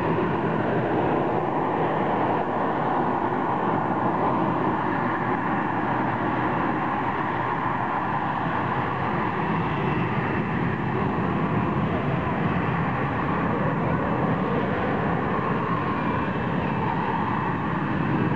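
Harrier jump jet's Rolls-Royce Pegasus vectored-thrust turbofan running at high power to hold the aircraft in a hover, a loud, steady jet noise that holds without a break.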